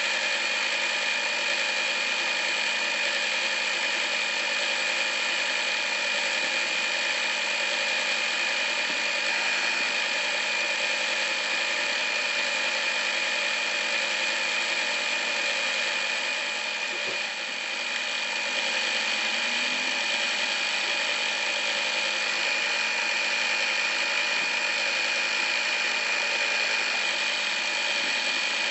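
Usha Dream Maker 120 computerized sewing machine running steadily at speed, its motor giving a steady whine as the needle sews a decorative embroidery stitch. It goes briefly a little quieter about seventeen seconds in.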